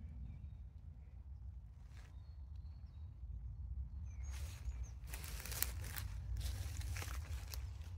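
Low steady wind rumble with faint bird chirps; about four seconds in, a few seconds of loud rustling, crunching footsteps over dry ground cover.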